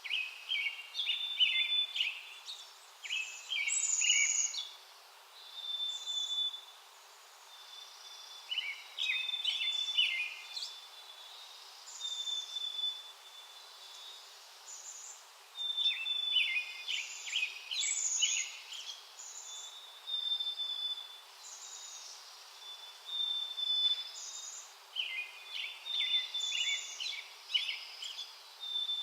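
Wild songbirds singing: one bird repeats a song of rapid trilled notes every seven or eight seconds, with short clear high call notes from other birds in between.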